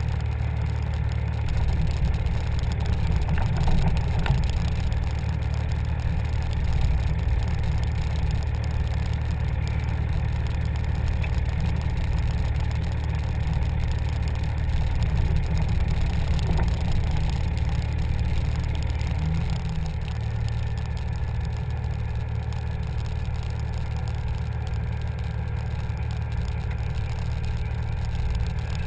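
Cummins diesel pickup engine running low and steady at slow speed near idle, heard from a hood-mounted camera. It swells a little in the first several seconds and eases slightly about two-thirds through.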